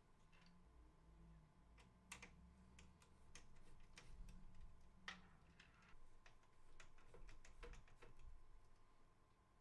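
Faint, scattered clicks and taps of a 140 mm case fan's plastic frame knocking against a PC case as it is handled and fitted into the case front, the sharpest about two and five seconds in.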